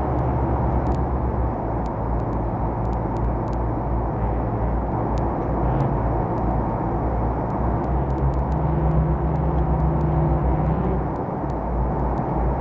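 Steady, even drone of propeller aircraft engines, heavy in the low end, with scattered faint clicks over it.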